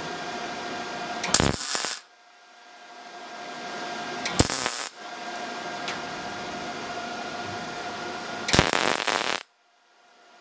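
MIG welder laying short bursts of weld on the top of a steel canister of scrap metal: three crackling arc bursts of about half a second to a second each, with the welder's steady hum between them.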